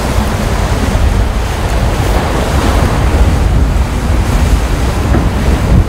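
Wind rumbling on the microphone over the steady rush of sea water, on the open deck of a Volvo Ocean 65 racing yacht under sail.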